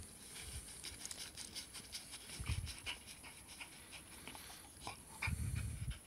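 Two Glen of Imaal Terriers digging and nosing into a hole in sandy soil: scratchy scraping of earth and panting at the hole. A muffled low rumble comes about two and a half seconds in, and a longer, louder one near the end.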